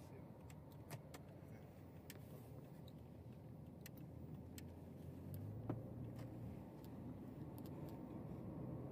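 Faint low rumble of a motor vehicle or road traffic, with scattered small clicks and one sharper knock a little past the middle.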